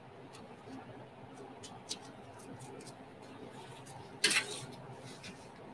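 Faint scratching and light clicks of a small hand tool working paint on a metal panel, with one louder short scrape about four seconds in.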